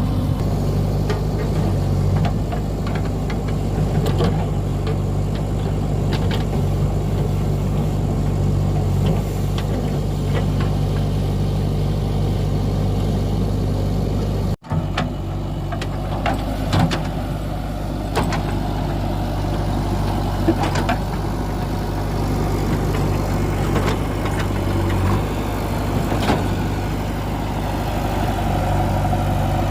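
JCB 3DX backhoe loader's diesel engine running steadily, with scattered short knocks and clanks over it as the machine works. The sound drops out for an instant about halfway through.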